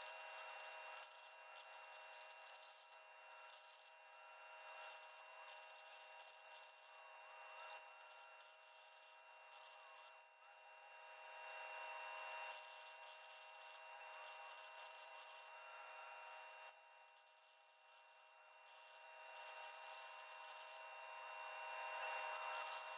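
Faint, uneven crackling hiss of arc cutting into the steel trommel drum, over several steady tones.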